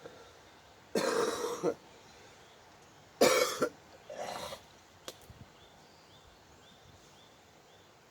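A man coughing: three short, harsh coughs, one about a second in, the loudest about three seconds in, and a weaker one right after it.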